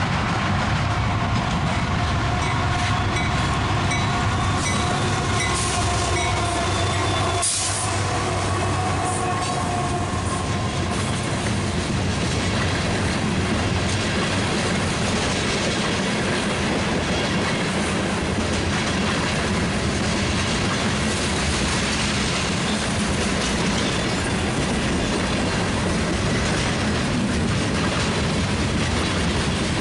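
Freight train of covered hoppers and tank cars rolling past close by, a steady rumble of wheels on rail. A few steady high tones ring over the first ten seconds as the locomotives come up and go by.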